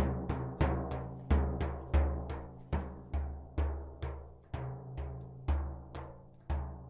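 A deep, resonant drum beaten by hand in a steady rhythm, about two to three beats a second, each stroke ringing out and fading.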